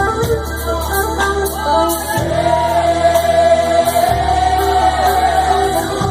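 Live Christian gospel song: singing over band accompaniment, the voice holding one long wavering note from about two seconds in.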